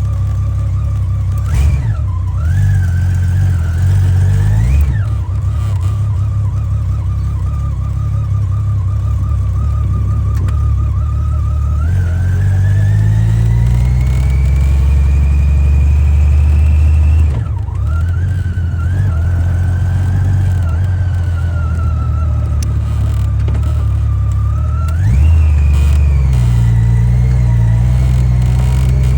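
Honda Gold Wing GL1500SE's flat-six engine running under way, with a whine that rises and falls with speed. There are short dips and pitch changes about 2 and 17 seconds in, like gear changes or throttle being closed.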